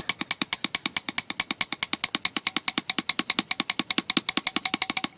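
A pair of Klein pliers worked rapidly open and shut, the handles knocking against the rivet's stops in a fast, even run of clicks, about eight or nine a second. The pivot is soaked in WD-40 and the action is being worked to loosen a stiff joint and force out old grease.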